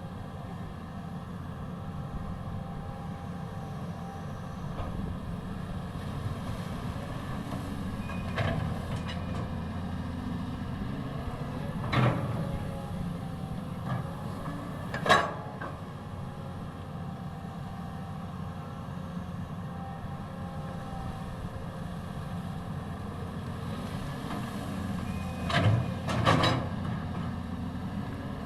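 Caterpillar 320D hydraulic excavator working, its diesel engine running steadily with a faint wavering whine over it. A few sharp knocks stand out: two in the middle and a close pair near the end.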